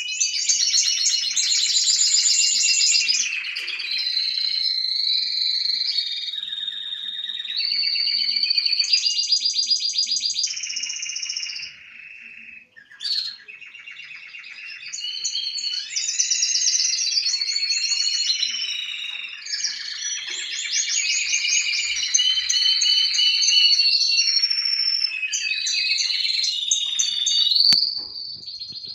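Male red canary singing: a long song of rapid trills and rolls, each held at one pitch for a second or two before switching to another, with a short break about halfway through.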